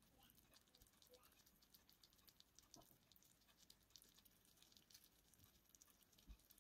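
Near silence: faint, scattered soft ticks of a miniature pot of curry simmering over a small flame, with a low thump near the end.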